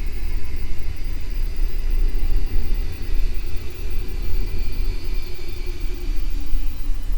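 Haunted-house horror ambience: a deep, steady rumble with thin eerie tones above it that drift slowly in pitch.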